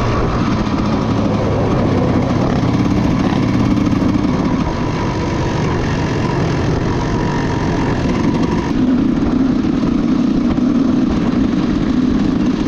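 Dirt bike engine running steadily while riding. About nine seconds in the sound changes: a higher steady tone and the upper hiss drop away, and the low engine note gets stronger.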